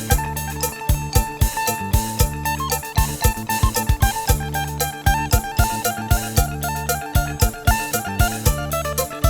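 Background music with a steady, quick drum beat under held melodic notes.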